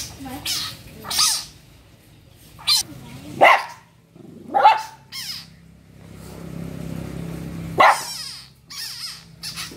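Small dog giving short, sharp barks and yips, about eight in all, at rats caught in a wire cage trap.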